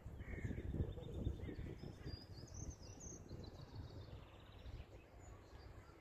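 Faint outdoor park ambience: a low, uneven rumble on the microphone, with distant small birds chirping and a short trill about three seconds in.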